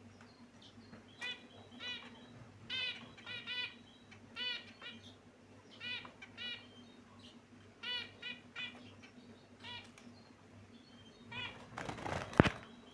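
Caged pet finches giving short, repeated chirping calls, often in quick pairs or triples, about one burst a second. Near the end there is a louder brief flutter, likely wings flapping in the cage.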